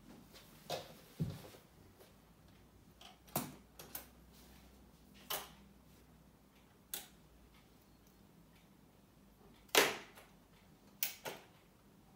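Record-changer turntable going through its automatic cycle: scattered sharp mechanical clicks and knocks at uneven intervals over a faint low motor hum, with one louder clack near the end.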